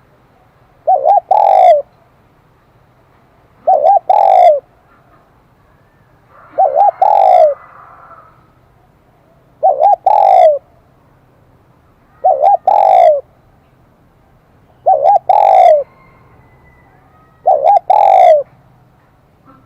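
Spotted dove with a high, clear 'kim đồng' voice cooing: seven calls about every three seconds, each two quick short notes and then a longer falling note.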